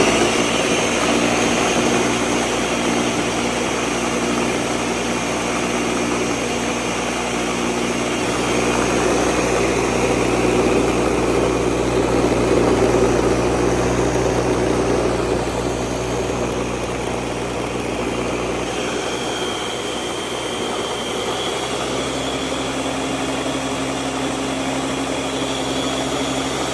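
Ninja countertop blender running on medium speed, its motor whirring steadily as it blends soaked sea moss and water toward a gel. About 19 seconds in the sound changes a little: the low rumble eases and a thin higher whine comes in.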